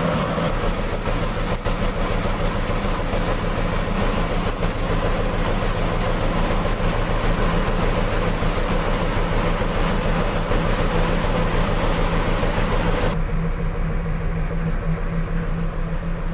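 N70 rice huller running, driven by a PS100 truck diesel engine: a steady low engine hum under a loud rushing hiss from the milling machine. About three seconds before the end the hiss drops away abruptly while the engine keeps running.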